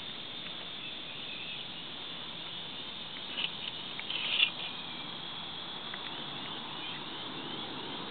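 Insects, crickets among them, chirring steadily, with two short louder sounds about three and a half and four and a half seconds in.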